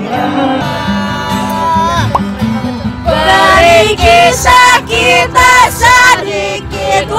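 Acoustic guitar and singing. About three seconds in, the singing grows louder and nearer, in phrases broken by short gaps.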